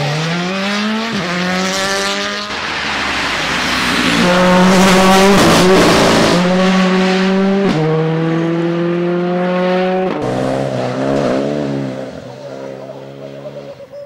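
Rally car engines at full throttle, the pitch climbing and dropping back sharply at each quick upshift, about five shifts in a row, with a rush of noise from the tyres on the loose surface around the middle. Near the end the engine lifts off and the sound fades.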